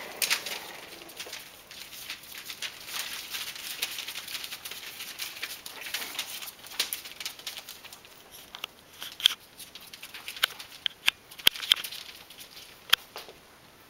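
French bulldog puppies' paws and claws scrabbling over spread newspaper: rustling and crinkling paper with many quick clicks and taps. About halfway through it thins out to scattered sharp ticks.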